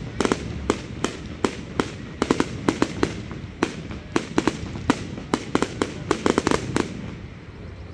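Aerial fireworks bursting overhead: a rapid, irregular string of sharp bangs, several a second, that stops about a second before the end.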